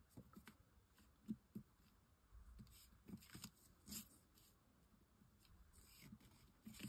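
Near silence with faint, scattered light ticks and taps: metal tweezers picking tiny craft pearls off their sheet and setting them onto a card tag.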